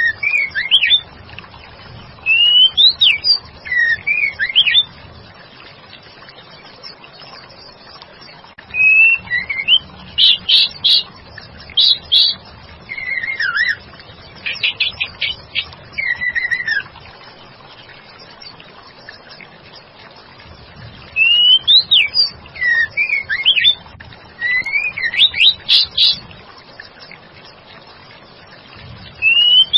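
Female white-rumped shama calling: bouts of quick whistled notes sweeping up and down, one with a rapid run of short repeated notes, separated by pauses of several seconds over a faint steady hiss. It is the female's call to a male, used to draw a male shama into answering.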